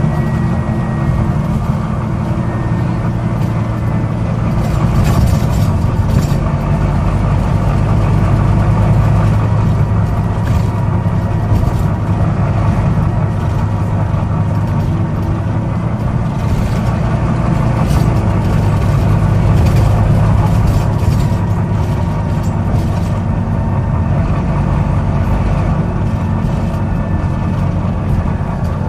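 Volvo B9TL double-decker bus's six-cylinder diesel engine running on the move, its drone swelling a little twice, with irregular sharp clicks over it: the clicking noise the bus has developed.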